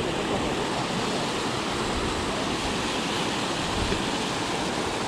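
Water rushing over a low dam spillway: a steady, even roar of falling water.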